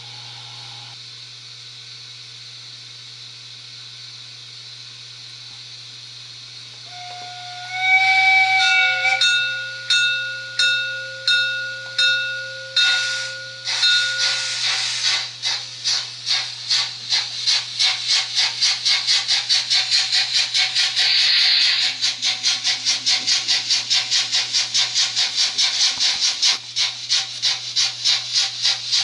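Model steam locomotive's digital sound decoder: steady steam hiss while standing, then a whistle held for several seconds about seven seconds in, then exhaust chuffs that start slowly and speed up to about three a second as the locomotive pulls away.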